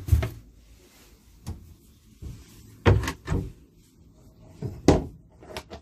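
Caravan cupboard and wardrobe doors being opened and shut: a series of about six knocks and clunks, the loudest right at the start, around three seconds in and about five seconds in.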